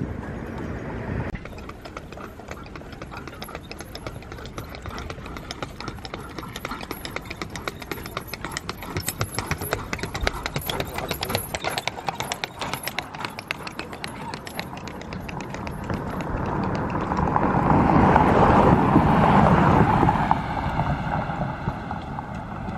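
Horse hooves clip-clopping on asphalt, from horse-drawn carriages. Near the end a car passes, swelling louder and then fading.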